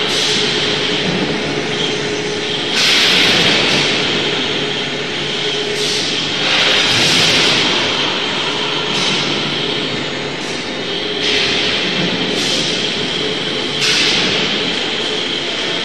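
Electric rail transfer cart running along its track: a steady mechanical rumble with a faint hum, and louder hissing surges every few seconds.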